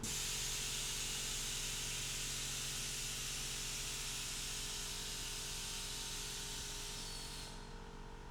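Steady hiss of compressed air venting, over a faint low hum; the hiss stops about seven and a half seconds in.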